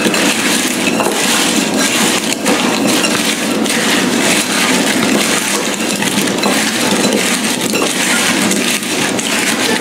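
Butter-coated apple slices being tossed with light brown sugar in a bowl: a steady gritty rustle with many small clicks.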